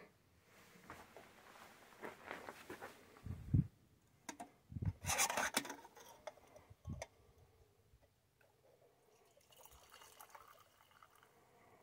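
A few low knocks and handling noise as a camping kettle is picked up from a backpacking gas stove, then water is poured from the kettle into an enamel mug near the end.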